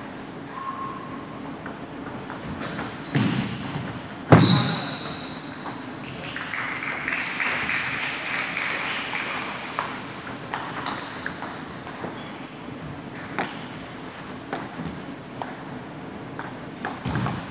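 Table tennis ball being hit back and forth in a rally, sharp ticks off the paddles and the table in an echoing hall, with a louder knock about four seconds in.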